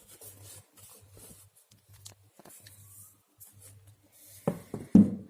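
A painting knife scraping and dabbing acrylic paint onto board canvas in short scratchy strokes, then two sharp taps near the end.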